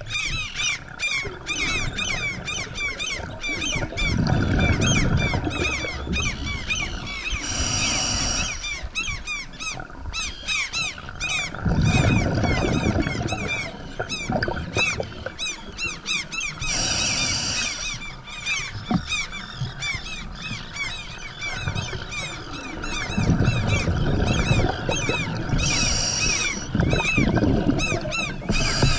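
Scuba diver breathing through a regulator underwater: three short hissing inhalations about nine seconds apart, each followed by a low rumbling burst of exhaled bubbles, over a constant fast high chirping crackle.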